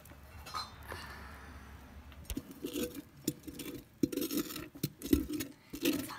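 A metal spoon scraping and clinking against a hollowed watermelon rind as thick, wet homemade slime is scooped out and slops into a plastic bowl. It starts softly, then from about two seconds in becomes a quick run of sharp clinks and wet squelches.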